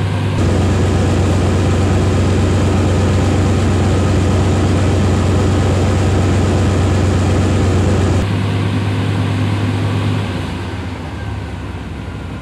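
GM pickup's engine and drivetrain running steadily in first gear, the driveshaft and wheels spinning in the air at about 10 mph, a steady low hum. This slow run primes the NP241-C transfer case's oil pump so it picks up fluid and pressurises the case. The hum gets quieter about ten seconds in.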